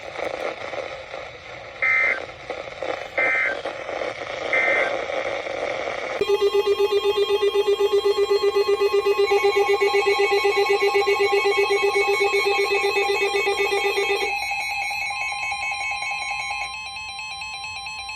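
Noisy broadcast-radio audio carrying three short warbling data bursts about a second apart, the EAS end-of-message tones closing a severe thunderstorm warning. Then a loud electronic alarm tone rings out, many pitches pulsing rapidly, and changes its pattern about two-thirds of the way through.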